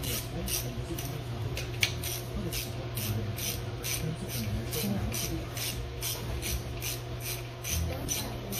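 Emery cloth rubbed back and forth by hand on the crankshaft's pitted rear seal surface, a steady rhythm of rasping strokes about two and a half a second.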